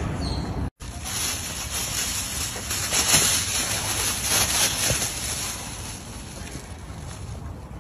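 A plastic bag rustling and crinkling as a young monkey drags it across dry leaf litter, with a brief total cut-out in the sound near the start.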